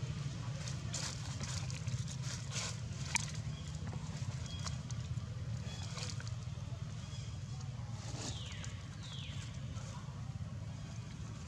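Outdoor background with a steady low hum and scattered faint clicks. About eight and nine seconds in come two short high calls, each falling in pitch.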